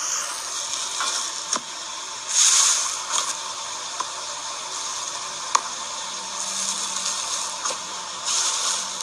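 Crunchy slime being squeezed and pressed by hand, crackling and popping steadily with sharp single pops and swells of louder crackling, the loudest about two and a half seconds in and again near the end.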